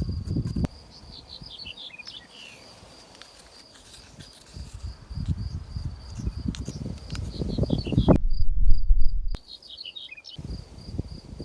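Walnuts pounded in a mortar with a pestle: a run of dull, irregular thuds, loudest in the second half. Crickets chirp steadily in a fast pulse throughout, with a few bird calls.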